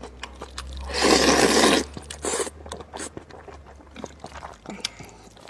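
Close-miked eating of spicy rice noodles with beef intestine: wet chewing and many small mouth clicks, with a loud noisy rush lasting about a second, about a second in, and a shorter one a second later.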